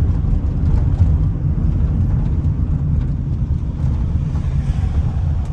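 A car being driven, heard from inside the cabin: a steady low road rumble with no sharp events.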